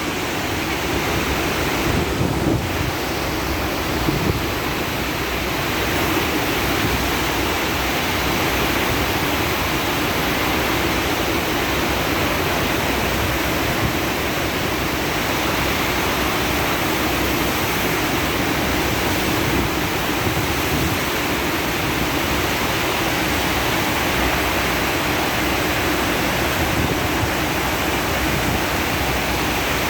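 Surf waves breaking and washing in a steady rush of water noise, with wind on the microphone.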